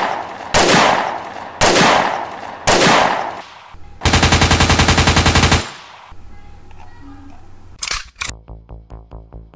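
Gunfire sound effects: four loud single bangs, each with a long echoing tail, then a rapid machine-gun rattle lasting about a second and a half. Near the end come two sharp hits, and a music track with a steady pulse starts.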